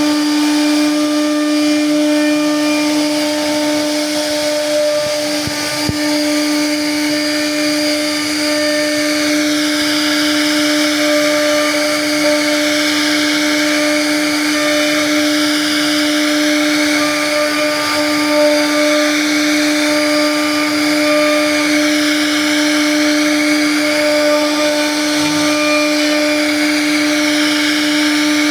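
CNC router spindle running with a steady high whine while its bit carves wood, the hiss of the cut rising and falling in pitch as the tool travels along the pattern.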